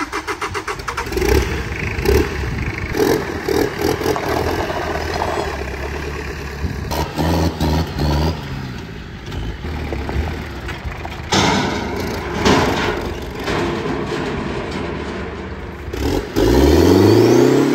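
Perkins diesel engine of a homemade picnic-table buggy running and revving as it drives, in several short stretches that change abruptly. Near the end the engine revs up and holds a high, steady pitch, the loudest part.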